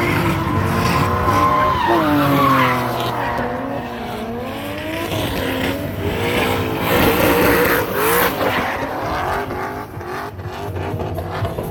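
Drift cars on track: engines revving up and down again and again, with tires squealing and skidding.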